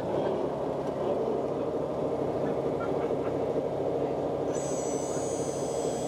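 Radio-controlled model construction machinery running: a steady, buzzing mechanical drone, joined about four and a half seconds in by a thin, high, steady whine.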